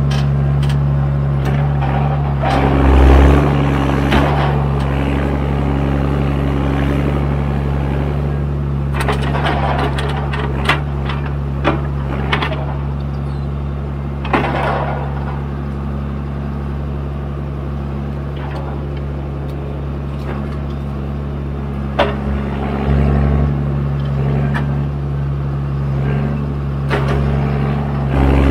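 John Deere 1410D forwarder's 6.8-litre diesel engine running steadily while the hydraulic crane works, the engine note swelling under load a few times. Occasional sharp knocks as wood is handled.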